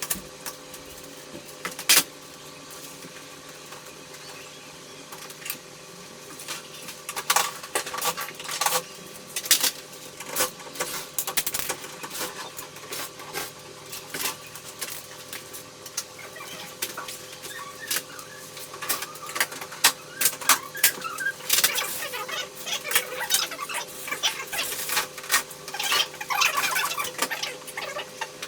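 Irregular clicks and clinks of small metal and plastic parts being handled while an air conditioner is taken apart for cleaning, over a steady low hum. The clinking is sparse at first and comes thick and fast from about seven seconds in.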